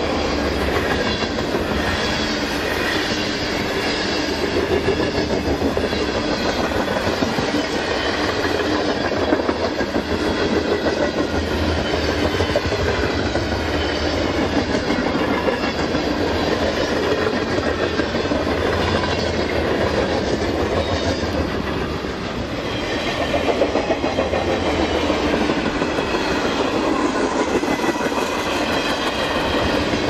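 Freight train cars rolling past close by: a steady rumble of steel wheels on rail, with the clickety-clack of wheels over the rail joints.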